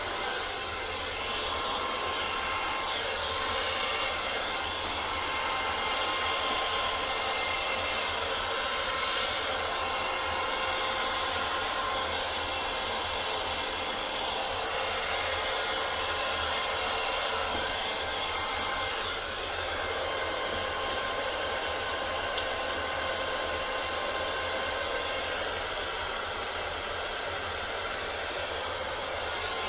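Handheld hair dryer running steadily, a constant blowing hiss with a steady whine, used to blow acrylic paint across a canvas in a Dutch pour.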